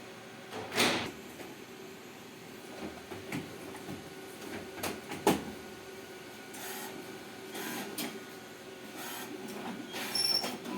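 Mechanical clicks, knocks and rubbing over a steady low hum, like a printer-type mechanism. There is a sharp click about a second in and a louder one about five seconds in, with a few short hissing sweeps later.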